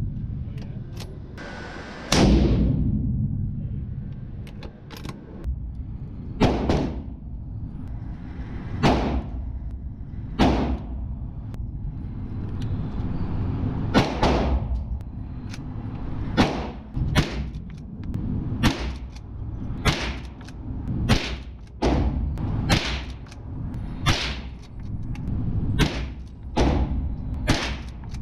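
Gunshots reverberating in an indoor range. A few shots come several seconds apart in the first half. From about halfway they turn into a steady string of roughly one shot a second from a .45 ACP 1911 pistol.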